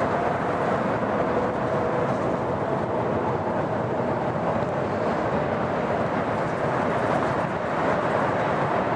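Train running past: a steady, unbroken rumble of wheels on the rails with a faint held whine above it.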